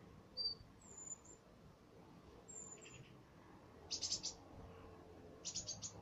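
Small bird chirping faintly: a few single high chirps, then two quick runs of four or five chirps, one in the middle and one near the end.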